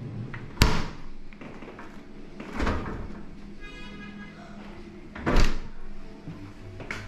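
Three heavy thumps, about two and a half seconds apart, with a brief ringing tone between the second and third over a steady low hum.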